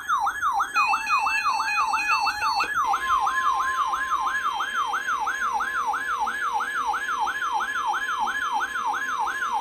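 Weather alert radio's siren alarm: a fast, falling electronic whoop repeated about three times a second. A stepped, warbling tone runs through the first three seconds, then NOAA Weather Radio's steady warning alarm tone runs underneath. This is the alert that comes ahead of a new severe thunderstorm warning.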